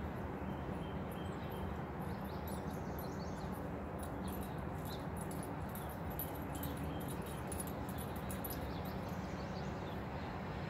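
Steady outdoor background noise, with faint, short, high-pitched sounds through the middle.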